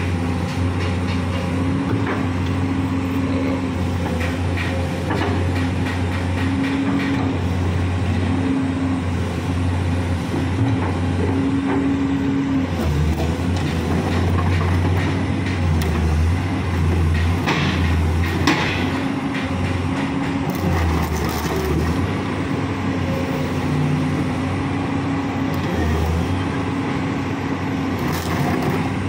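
Komatsu PC200-8 excavator's six-cylinder turbo diesel engine running steadily, its note swelling and easing every few seconds as the operator works the hydraulics and swings the machine.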